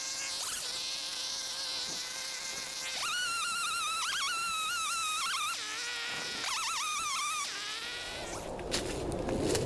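Husqvarna 345 two-stroke chainsaw running steadily, then revved up about three seconds in, its pitch wavering as the chain bites into wood. It eases off briefly and revs again into a second cut. Near the end the engine tone falls away and brush crackles and rustles underfoot.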